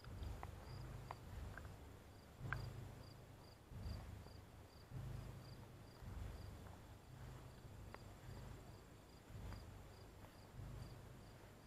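Faint, steady chirping of crickets, short high pulses about two or three a second. Under it are low thuds about once a second from a walker's footsteps.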